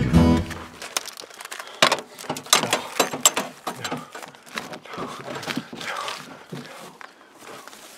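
Irregular rustling, crinkling and small knocks of a cloth being rubbed over a payphone's plastic housing, fading out near the end.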